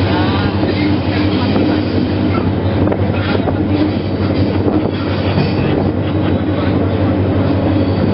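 A CC205 diesel-electric locomotive running under way, heard from its cab window: a steady engine drone over wheels rumbling on the rails. A brief high wheel squeal sounds near the start, and a few rail clicks come around the middle.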